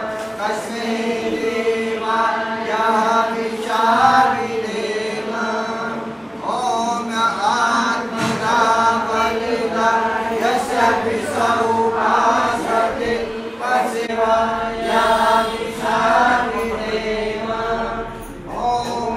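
Mantra chanting at a Hindu homewarming puja: a voice chants in short melodic phrases, with a steady unbroken drone beneath.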